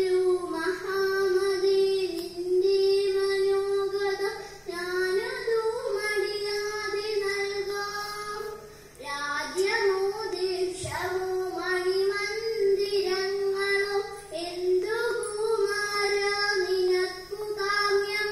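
A young girl singing the song part of a Malayalam kathaprasangam into a microphone, in long held notes over four phrases with short breaks between them.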